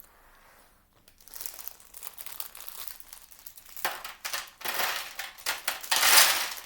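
Small plastic Lego pieces rattling and clicking as they are tipped into a tray, mixed with the crinkle of plastic parts bags. It starts about a second in and grows louder from about four seconds in.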